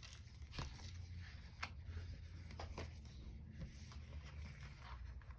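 Soft paper rustling and light clicks as sticker-book pages and sticker sheets are handled, a few brief rustles spread through, over a low steady hum.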